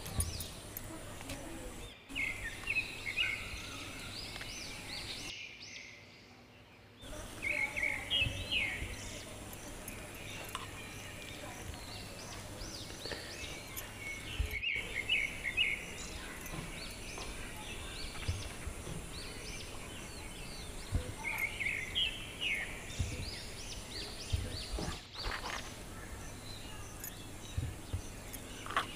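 Birds chirping in short clustered bursts every few seconds over a steady outdoor background hiss, with a few soft low knocks.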